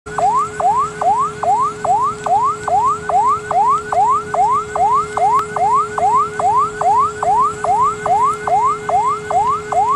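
Electronic siren in fast yelp cycles: each a rising sweep that drops back sharply, a bit over two a second, over a steady tone.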